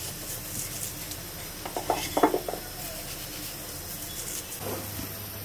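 A short cluster of clinks and knocks from kitchenware about two seconds in, with a smaller one near the end, over a steady faint hiss, as nigella seeds are sprinkled onto flour in a steel mixing bowl.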